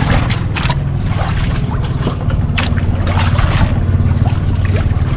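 Small engine aboard an outrigger fishing boat droning steadily, with a few sharp clicks and knocks over it.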